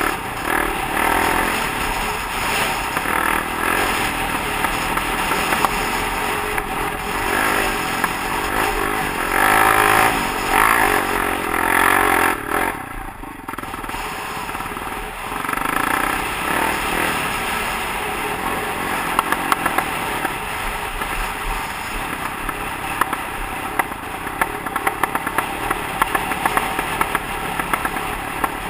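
Honda CRF450X dirt bike's single-cylinder four-stroke engine running under changing throttle while riding a rocky singletrack, with a brief roll-off near the middle. In the second half it is joined by many sharp ticks and clatter from stones and the bike over rough ground.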